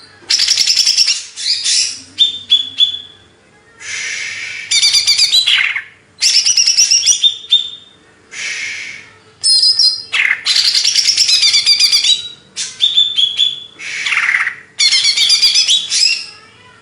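Green leafbird (cucak ijo) singing loudly in a series of rapid, varied warbling phrases, each a second or two long, with short pauses between them.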